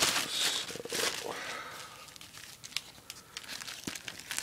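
Clear plastic packaging crinkling as hands handle it, dense and loud for the first second and a half, then quieter scattered crackles, with a loud crinkle again at the very end.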